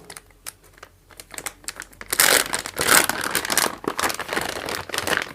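Inner packaging cover around an HDMI cable being torn open and handled, crinkling and rustling. A few light clicks first, then dense crinkling from about two seconds in.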